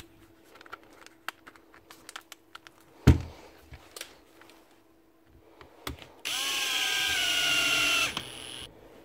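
Drill-driver motor spinning up and running steadily for about two seconds, driving a screw into the plastic housing of an impact driver. Before it, small clicks of parts being handled and one sharp knock about three seconds in.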